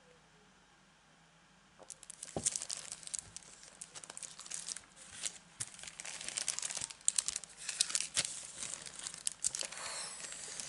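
Thin plastic packaging of clear stamp sets crinkling and rustling as it is handled, starting about two seconds in, with irregular crackles.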